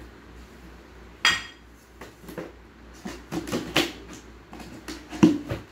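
A metal cooking pot clinks once with a short ring about a second in, followed by a run of knocks and rustling as its cardboard box is handled and opened; the sharpest knock comes near the end.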